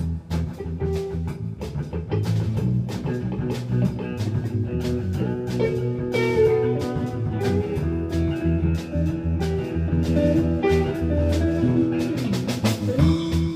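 Blues band music: guitar over a steady drum beat, with a held note near the end.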